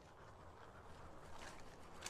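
Near silence: faint outdoor ambience, with a soft scuff or tick about a second and a half in.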